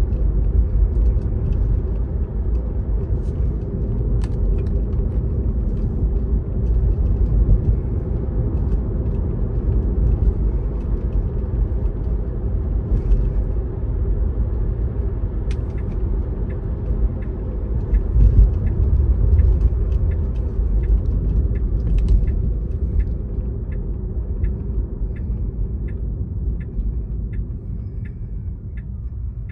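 Steady low rumble of a car's tyres and engine heard from inside the cabin. From about halfway, the turn-signal indicator ticks evenly, about one and a half ticks a second, for a left turn. Toward the end the rumble eases as the car slows.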